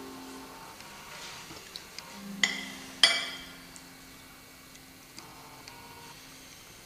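Held low notes of background music, with two sharp clinks of cutlery against a plate about half a second apart; the second is louder and rings briefly.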